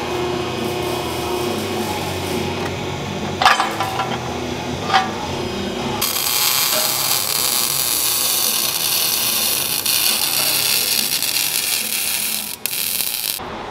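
Hydraulic pipe bender running with a steady hum while it bends steel exhaust tubing, with two sharp metallic clicks a second and a half apart. About six seconds in, it gives way to the steady crackling hiss of an electric welding arc joining exhaust pipe, which cuts off near the end.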